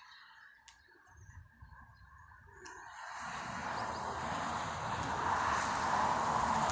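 Strong wind gusting against the microphone: quiet at first, then about halfway through a rushing, rumbling gust builds and stays loud.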